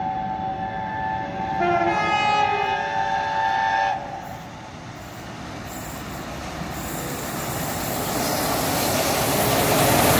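Steam locomotive 60163 Tornado, an A1 Pacific, sounding a long whistle that cuts off about four seconds in. Then the rumble of the locomotive and its coaches coming closer, growing steadily louder.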